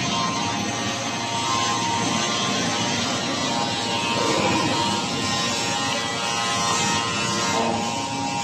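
Automatic dough sheet production line running: a steady mechanical whir from its motors, rollers and conveyor belt, with a faint steady whine of several tones running through it.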